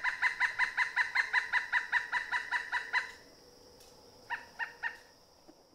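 A woodpecker calling: a fast, even series of loud pitched notes, about eight a second, for about three seconds. After a short pause come four more notes.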